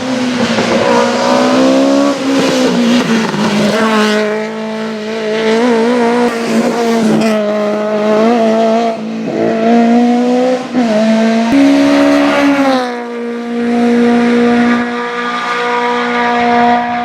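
Rally car engine running hard at high revs, its note dropping and rising several times with throttle lifts and gear changes.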